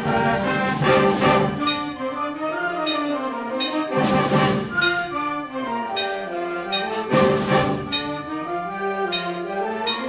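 High school concert band playing, with the brass prominent over woodwinds and percussion, in moving sustained chords. There are loud percussion crashes about four and seven seconds in.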